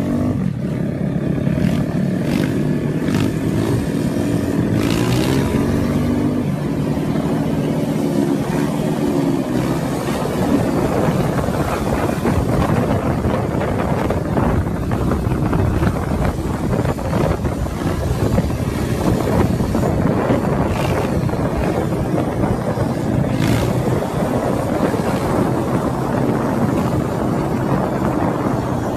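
Motorcycle engines running and revving, their pitch rising and falling, with wind noise on the microphone.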